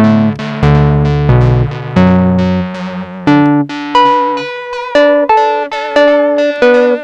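Roland Juno-6 synthesizer played through a Soviet "Echo" tape delay unit: a run of plucked-sounding notes that each strike and fade, lower notes with a bass line at first, then higher notes with a slightly wavering pitch from about halfway.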